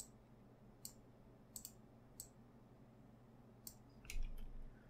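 Faint, scattered clicks of a computer mouse and keyboard, a handful spread over a few seconds, over a low steady hum, with a brief low rumble near the end.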